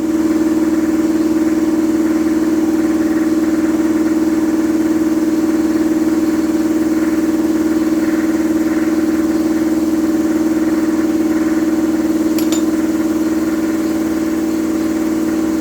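Shop air compressor running steadily with an even, unchanging hum, with a brief click about twelve seconds in.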